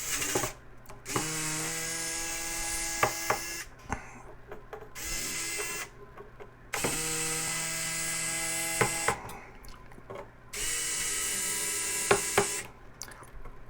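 Small cordless electric drill/driver backing screws out of a graphics card: four runs of a steady motor whine, each about one to two and a half seconds long, with clicks between them.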